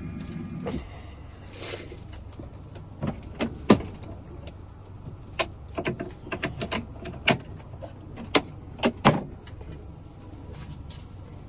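A string of sharp, irregular clicks and snaps of small hard plastic and metal parts being handled, as a new key and remote fob are worked on, over a steady low hum.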